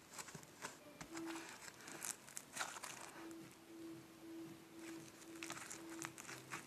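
Slime mixed with artificial snow (cut plastic flakes) squeezed and stretched by hand, giving soft crackling, crunchy clicks and pops.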